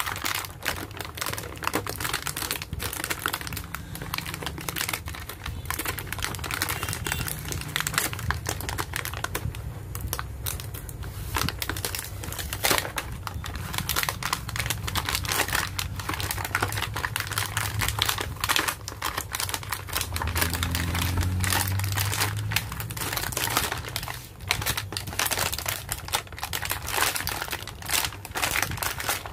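Thin clear plastic blister packaging crinkling and crackling as it is peeled and pulled away from a cardboard toy card, a dense run of irregular little clicks and rustles.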